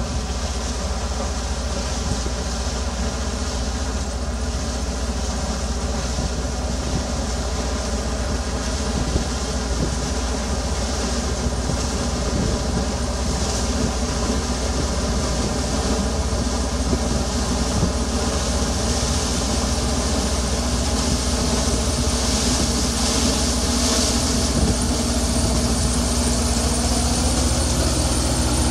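Combine harvester running steadily while harvesting corn: the engine and threshing machinery hum, growing gradually louder as the machine comes closer.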